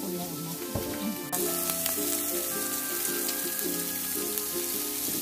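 Pork slices sizzling on a mu kratha dome grill-pan, a steady hiss that gets louder about a second in. Music with repeating pitched notes plays underneath.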